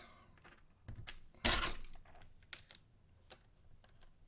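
Small clicks and taps of hard objects being handled on a work surface, with one louder clatter about one and a half seconds in.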